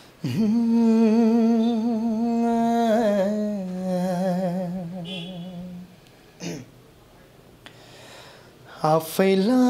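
A man singing unaccompanied, opening a slow song with a long wordless note held with vibrato, which steps down in pitch about three seconds in and fades out about six seconds in. After a short breath he starts the next phrase near the end.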